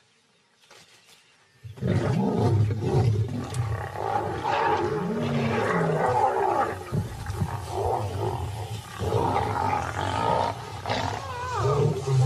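Lions snarling and calling loudly as adolescents fight over and maul small cubs. The sound starts suddenly a little under two seconds in and runs on densely, with a few higher falling cries near the end.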